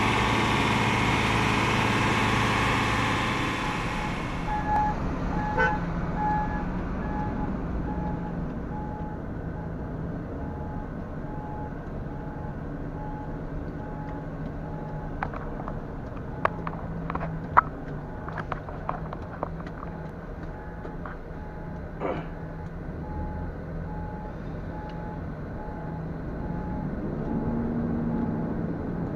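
A heavy diesel engine runs loudly close by for about four seconds. The sound then changes to the MAN TGS 33.480 truck's diesel engine heard from inside its cab, running low and steady, with a high beep repeating about once a second and a few sharp clicks. The engine note rises near the end.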